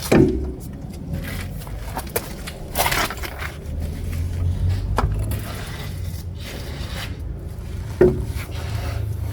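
Scattered metal knocks and scrapes of hand tools and suspension parts being handled while working on a car's front suspension, over a steady low hum.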